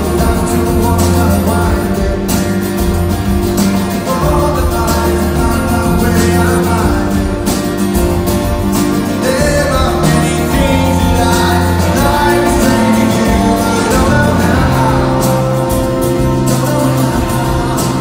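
Live rock band playing, heard from the audience: strummed acoustic guitar with drums, bass and electric guitars, and a male voice singing the melody.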